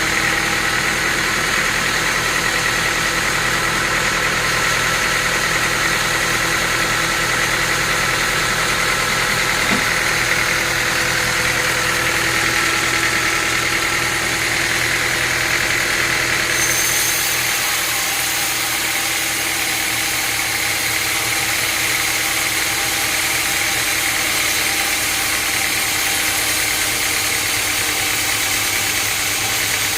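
A sawmill's engine running steadily, with a hiss over it that eases slightly about halfway through.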